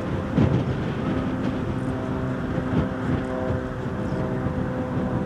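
Light aircraft engine and propeller droning steadily overhead, with wind rumbling on the microphone.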